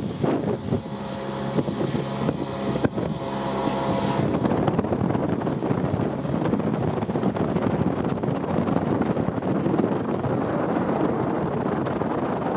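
Small motorboat's engine running as the boat moves along the river, with wind buffeting the microphone. A steady engine hum stands out clearly for the first few seconds, then sinks into the rushing wind noise.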